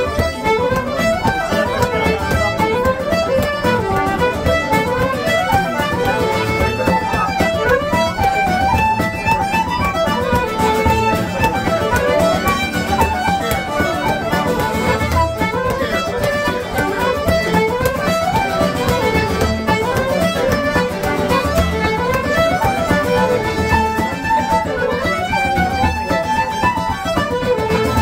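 Irish traditional session music: fiddles and a flute playing a tune together, with a strummed guitar keeping a steady beat underneath.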